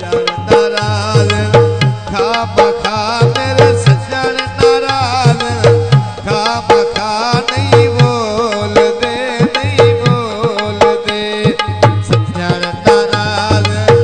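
Instrumental passage of a Punjabi folk song: tabla and drums keep a steady beat under a melody line that bends in pitch.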